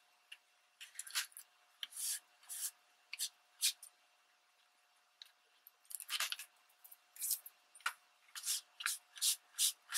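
A soft cloth patting and rubbing over damp, embossed magazine paper glued to a card base, blotting the water and rubbing-alcohol spray before the next spray. A series of short, dry swishes comes in two bursts, with a pause of about two seconds midway.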